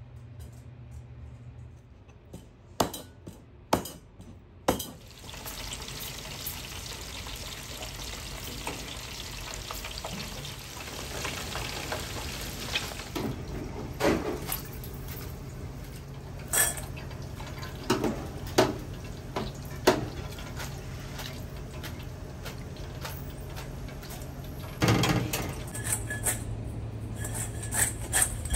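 Kitchen work sounds: a steady hiss comes in suddenly about five seconds in, with scattered clinks and knocks of dishes and utensils throughout.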